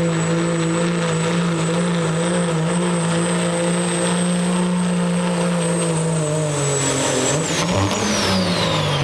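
Diesel pickup's engine, a Cummins in a second-generation Dodge Ram, running flat out under heavy load against a pulling sled, with a steady high turbo whistle. About seven seconds in, the throttle comes off: the engine note drops and the turbo whistle winds down in a falling whine.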